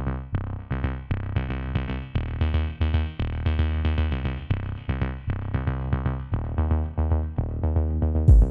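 Background music: electronic track with synthesizer notes over a deep bass and a drum-machine beat.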